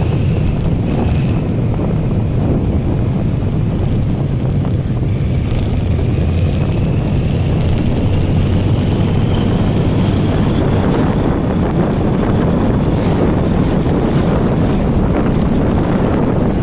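Steady wind buffeting the microphone of a moving motorcycle, a dense low rumble that covers the ride's engine and road noise, with a faint whine rising in the middle.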